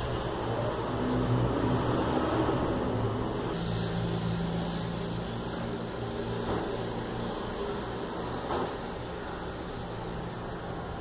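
Steady low mechanical hum of a running motor or fan, with two faint light taps about six and eight and a half seconds in.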